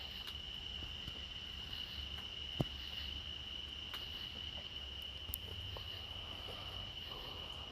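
A steady high-pitched tone or trill, like an insect's continuous song, over a low background hum, with one sharp click about two and a half seconds in.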